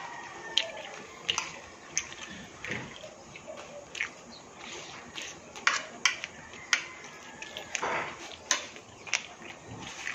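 Close-up eating sounds: wet chewing and lip smacks with sharp, irregular clicks, including a spoon tapping on a ceramic plate.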